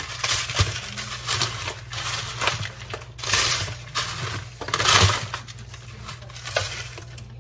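Hands crumbling cornbread in a disposable aluminium foil pan: irregular crunching and rustling, with the thin foil crinkling as the hands press into it, loudest about three and five seconds in.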